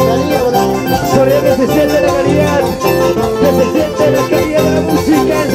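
Live Latin American band music: a held, bending melody line over a steady bass and rhythm.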